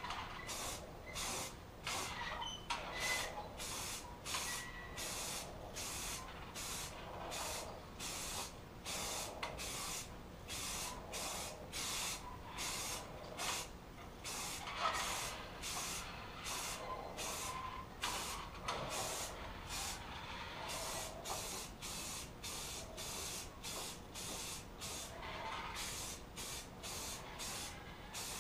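Aerosol can of primer filler spraying in a long run of short hissing bursts, each cut off by a brief pause, keeping an even pace throughout.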